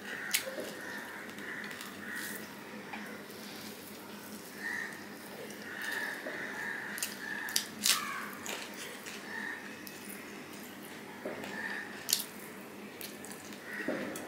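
Close-miked eating by hand: fingers squishing and mixing rice with fish curry on a plate, then wet chewing with a few sharp mouth clicks and lip smacks, the loudest around a mouthful about eight seconds in.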